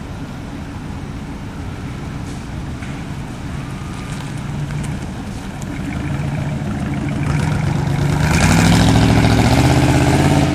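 A 1960s Cadillac's V8 engine as the car drives past. The engine note grows steadily louder as it approaches, rises in pitch about eight seconds in, and is loudest near the end.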